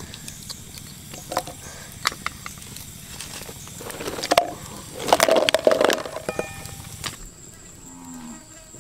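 Food dropped into a wok of water over a wood fire, splashing loudest in two bouts about four and five to six seconds in, with scattered small clicks and crackles around them.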